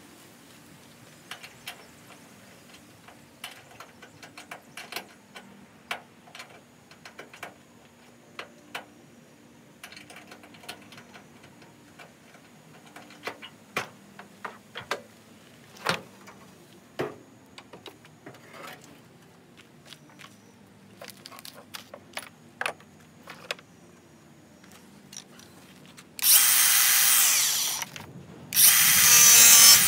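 Scattered light clicks and knocks of tools and parts being handled, then a power tool runs loudly in two bursts near the end, with a short break between them.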